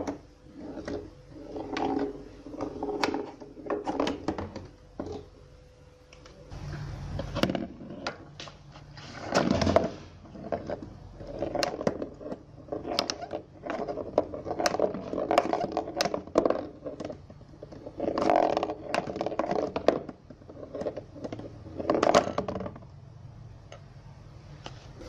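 A small ball rolling across a cardboard pinball playfield, with repeated rolling rumbles broken by sharp knocks as it is batted by the cardboard flippers and strikes the cardboard walls and posts.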